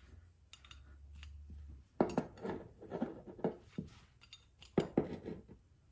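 Small metal carburetor parts from a Kohler Command twin clinking and tapping as they are fitted and snugged together during reassembly: a string of short, sharp clicks and knocks starting about two seconds in.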